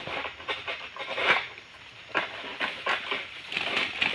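Long-pole oil palm harvesting sickle scraping and hacking at a frond and the fruit bunch stalk. It makes a series of irregular crunching, rasping strokes, the strongest about a second in.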